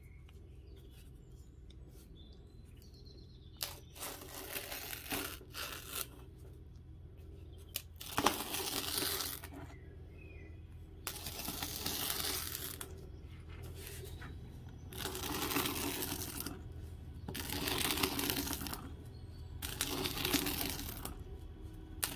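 A series of hissing strokes, each one to two seconds long, coming about every two seconds over a low steady hum.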